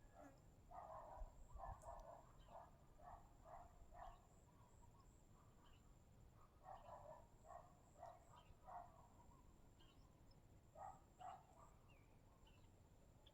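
Faint, distant animal calls: runs of short repeated notes, about two a second, in three bouts.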